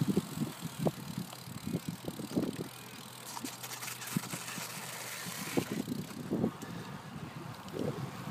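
Bicycle rolling along a concrete path, with irregular knocks and rattles over a low hiss of tyres and wind, busier at the start and thinning out through the middle.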